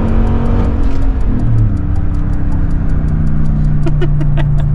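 2021 Nissan Titan Pro-4X's 5.6-litre V8 pulling the truck along, its note coming through a Flowmaster Super 10 true-dual exhaust with an X-pipe and heard from inside the cab. The pitch shifts in the first couple of seconds, then holds steady.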